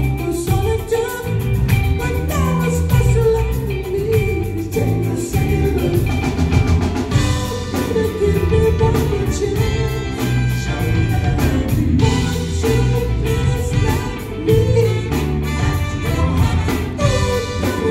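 A live band playing an upbeat song on drum kit, electric guitars, keyboard and horns while a group of singers sings, heard from the audience in a large hall.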